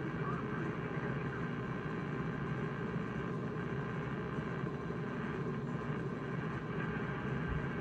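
Amateur HF receivers (Icom IC-7300 on 80 m, Flex-6600M on 40 and 20 m) giving out steady, rough static with a low buzz, the band noise heard across all three frequencies. The owner assumes it is power-line noise; it is present whenever things are dry and goes quiet in rain.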